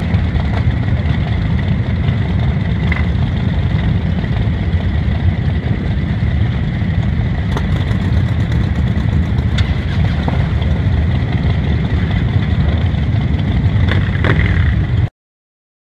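A crowd of cruiser motorcycles idling together, a steady low rumble with a few light clicks on top, cutting off abruptly near the end.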